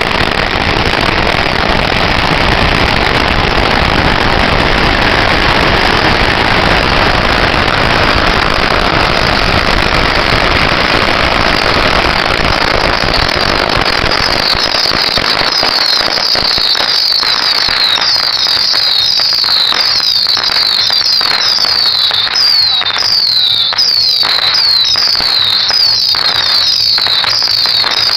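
A long string of firecrackers goes off in a dense, continuous crackle. About halfway through, it gives way to many whistling fireworks, each a short high falling whistle, about two a second, among scattered bangs.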